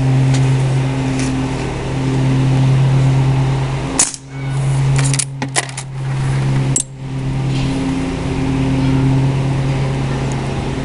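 Lever-action CO2 BB rifle firing with sharp cracks about four seconds in and again near seven seconds, with a quick run of metallic clicks between them as the lever is cycled. A steady low hum runs underneath throughout.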